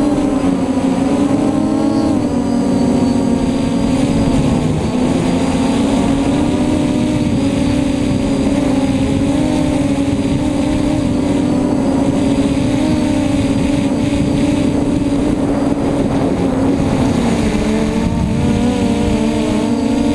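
A custom-built F330 quadcopter's brushless motors and propellers buzzing in flight, heard from the onboard camera, their pitch wavering up and down with throttle, over a rush of wind noise.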